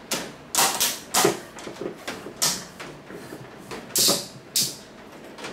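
An electric fan's outer guard being handled and fitted on, making a string of irregular sharp clacks and rattles, about seven loud ones over five seconds.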